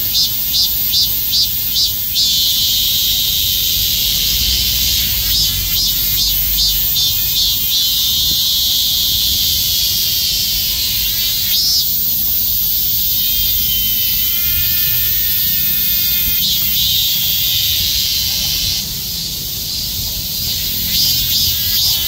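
A chorus of many cicadas calling loudly at once. Their high-pitched buzz pulses at two or three beats a second, merges into a continuous drone through the middle, and breaks back into pulses near the end.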